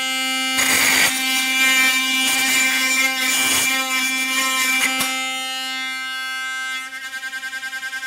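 Modified electric toothbrush used as an electric pick gun, buzzing at a steady pitch while its vibrating tip rattles against the pin tumblers in a Master Lock laminated padlock's keyway. There is a sharp click about five seconds in, and near the end the buzz turns into a fast pulsing before it stops.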